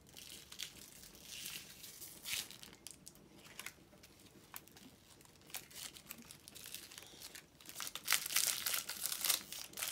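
Small plastic wrapper bag crinkling and tearing as it is opened by hand: sparse rustles at first, louder and denser in the last two seconds.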